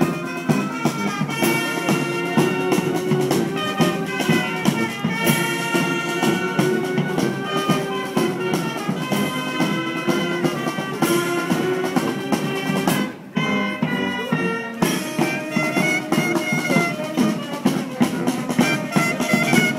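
Marching band playing: brass chords over a steady drum beat. The music thins out briefly about two-thirds of the way through, then resumes at full strength.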